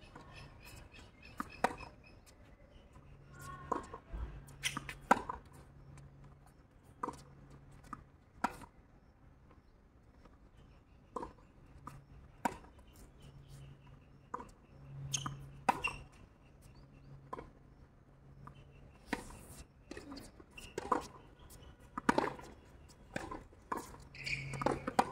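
Tennis rally on a hard court: sharp racket-on-ball strikes and ball bounces, one after another at irregular intervals roughly a second apart.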